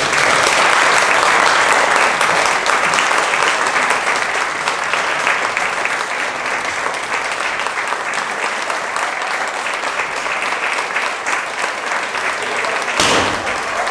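Theatre audience applauding a curtain call: dense, steady clapping that starts at once, loudest in the first couple of seconds. A brief thump sounds near the end.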